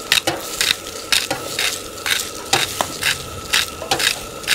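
Spatula stirring fried rice in a hot wok over a gas burner: regular scraping strokes, about two a second, over a sizzle.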